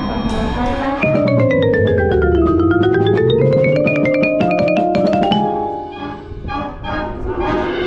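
Music: a run of quick, bright notes that falls in pitch and then climbs back up, thinning to a few scattered, quieter notes near the end.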